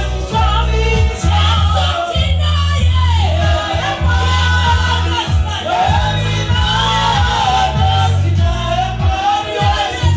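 Gospel song sung by a group of voices over a steady, loud bass accompaniment.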